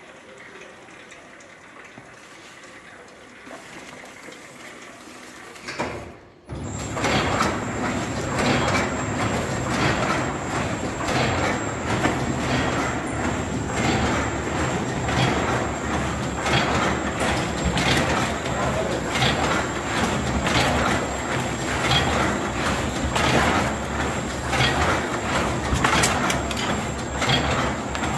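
ULMA Galaxy stretch-film tray wrapping machine running: a loud, steady mechanical clatter of repeated sharp clacks over a low drone, with a thin high whine. It comes in abruptly about six seconds in, after a quieter stretch of low hum.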